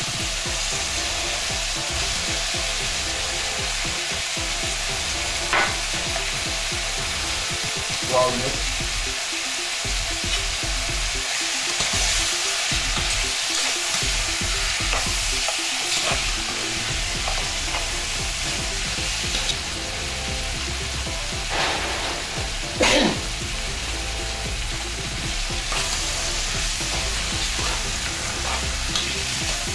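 Lamb pieces, onions and peppers sizzling steadily as they fry in a steel pot, being stirred, with a few brief louder stirring sounds.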